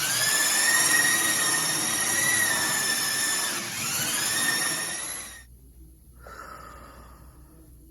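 High-speed power tool running with a high-pitched whine; its pitch sags briefly a little after halfway and recovers, then it stops abruptly, with a fainter whirr trailing off afterwards.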